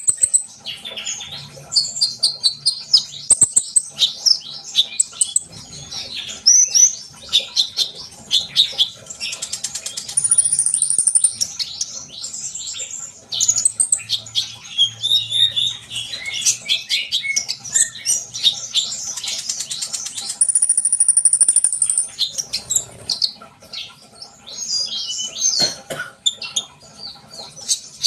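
Sunbird ('konin', kolibri ninja) singing non-stop: a rapid, high-pitched chattering of chirps and fast trills, broken by thin, held whistling notes about ten seconds in and again about twenty seconds in.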